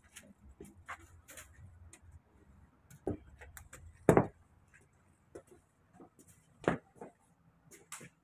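Irregular knocks and clicks of people coming in through a front door and walking into a hallway, including footsteps and a walking stick. The loudest knock is about four seconds in.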